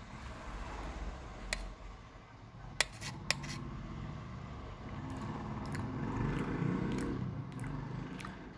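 Steel spoon clinking and scraping against a stainless steel plate of fried rice, with a few sharp clinks, the loudest two close together about three seconds in, and chewing between spoonfuls.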